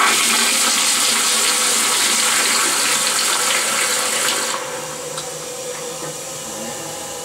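Kohler 1.6-gallon pressure-assisted toilet flushing: a loud rush of water that drops about four and a half seconds in to a quieter steady hiss.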